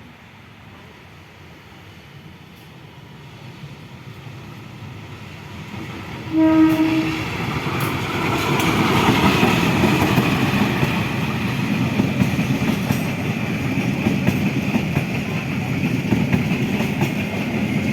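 A train approaching, growing steadily louder, gives one short horn blast about six seconds in. It then passes close by with a steady loud rumble of wheels on the rails.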